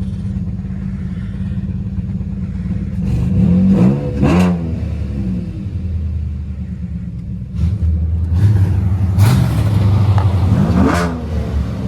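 Car engine with newly installed headers idling loud, then revved twice: a short rev about three seconds in and a longer one that climbs and drops back after about eight seconds.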